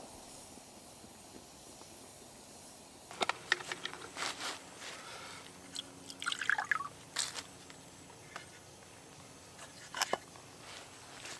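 Water poured into a carved wooden kuksa cup, splashing and trickling in irregular spurts from about three seconds in, with a short gurgle midway. Near the end there is a single knock as the wooden cup is set down on a log.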